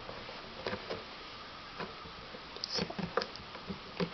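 Stretchy, putty-like slime being squeezed and pulled by hand, giving irregular soft clicks and pops that come thicker in the second half.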